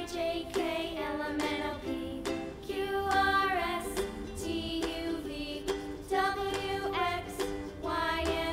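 Background children's music: a light, plucked-string tune in the manner of a ukulele, with a melody line.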